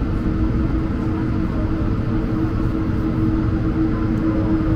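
Cabin noise in an Airbus A220-100 on the ground before takeoff: the steady hum of its Pratt & Whitney geared turbofans at low power, a constant low rumble with one steady tone.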